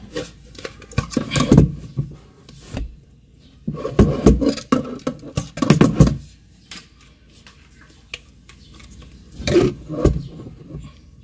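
Cabinet door and its steel concealed hinge knocking and clattering against the cabinet as the door is handled into place, in three bunches of short knocks.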